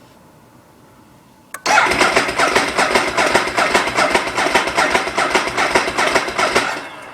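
A click, then the Ducati 1098's L-twin engine cranking on the electric starter for about five seconds in even rhythmic pulses without catching, and the starter stops. The bike has sat for four months and won't start even with a new battery.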